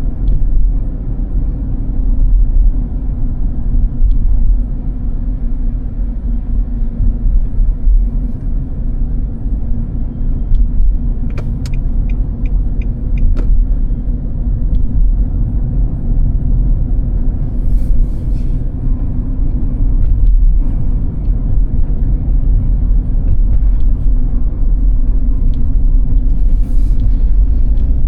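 Steady low rumble of a car driving on snow-covered roads, engine and tyre noise heard from inside. About halfway through comes a short run of quick, evenly spaced clicks.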